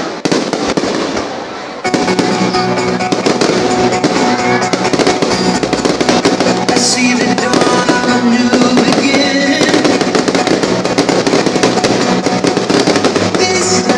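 Fireworks banging and crackling over loud music, which comes in about two seconds in and plays on steadily.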